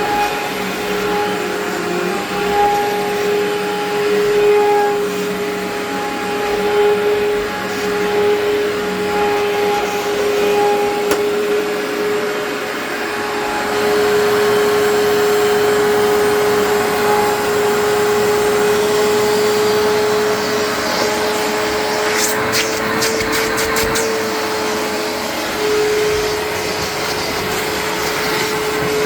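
Amway ClearTrak upright vacuum running with a steady motor whine over rushing airflow. About two thirds of the way through, a quick run of sharp clicks sounds.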